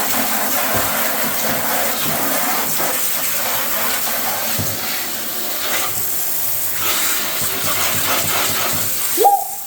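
Water rushing in a steady, loud hiss, with a short rising vocal yelp about nine seconds in, after which the rush falls away.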